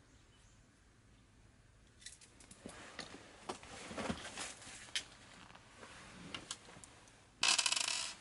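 Hand handling of an electric airsoft gun's piston head assembly: scattered clicks and scraping as its small metal parts (screw, bearing) are taken off and set down, ending in a loud, rapid rasping rattle under a second long.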